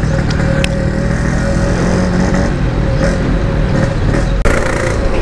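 Yamaha RX-King's two-stroke single-cylinder engine running steadily on light throttle through a stock-style packed exhaust, the bike moving slowly in heavy traffic.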